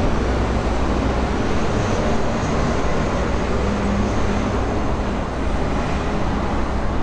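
Steady wind rushing and buffeting over the microphone, a loud low rumble with a hiss above it.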